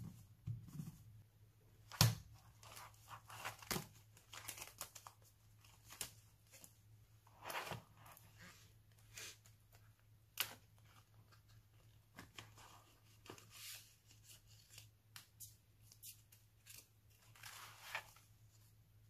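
Hands handling paper and clear plastic zip pouches in a ring binder: soft rustling and crinkling with scattered light taps and clicks, the sharpest tap about two seconds in.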